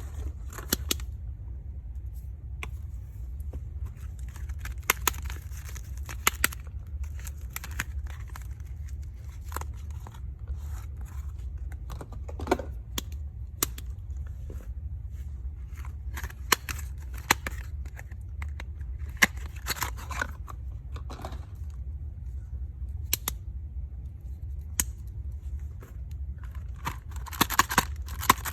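Soap packaging being handled and unwrapped: plastic wrap crinkling in short bursts, with sharp clicks and taps scattered throughout, over a steady low hum.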